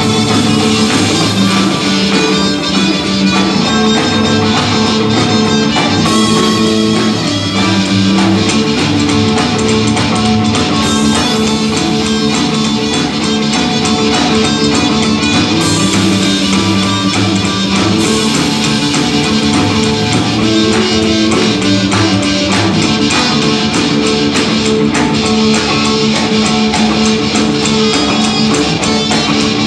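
Live blues band playing: harmonica played into a hand-held microphone leads over electric guitar, upright double bass and drum kit.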